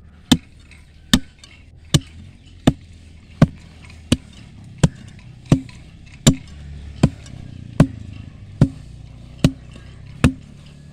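Steel digging bar striking repeatedly into stony soil around a tree root stump. About fourteen sharp, evenly paced hits, roughly one every three-quarters of a second.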